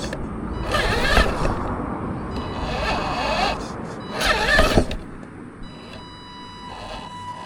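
Homemade 4x4 RC truck driving off-road, its motor whining up and down in pitch as it speeds up and slows. There are two louder rushes, about a second in and about four and a half seconds in, before it quietens near the end.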